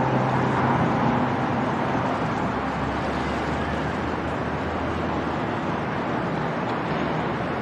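Background music fades out in the first second, leaving a steady, even rushing noise of outdoor city ambience, traffic and river, with no distinct events.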